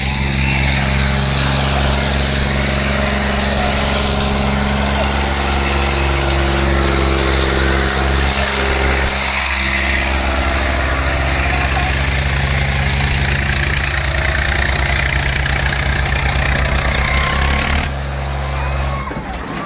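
Diesel farm tractor engines running hard at a steady pitch while pulling heavy weighted loads, with crowd voices over them; the engine sound eases near the end.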